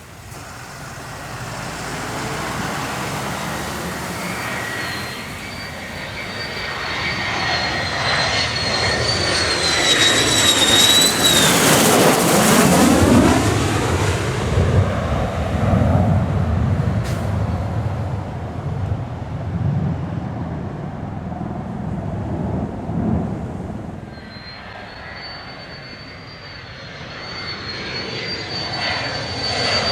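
USAF F-16CM Block 50 fighter's General Electric F110 turbofan passing close by. A high jet whine grows louder, is loudest about twelve seconds in and dips in pitch as the jet goes past, then a low rumble fades. Near the end another jet whine builds again.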